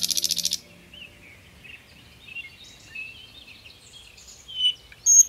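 Common nightingale singing. A fast run of repeated notes ends about half a second in, then come soft, scattered twittering notes and a louder whistled note near the end.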